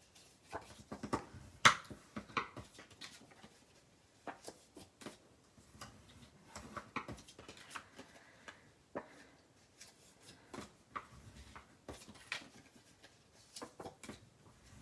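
Scored cardstock pieces being folded and handled on a work surface: scattered light taps, crinkles and rustles at an uneven pace.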